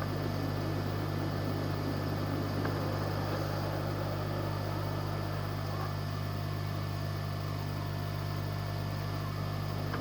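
Steady low electrical or mechanical hum with a faint hiss, unchanging throughout.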